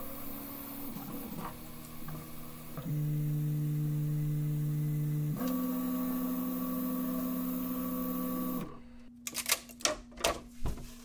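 Original Prusa i3 MK3 3D printer printing, its stepper motors singing in steady tones that jump to a new pitch every couple of seconds as the moves change. About two-thirds of the way through the printing stops, and a quick run of sharp clicks and snaps follows as the flexible steel print sheet is lifted and handled.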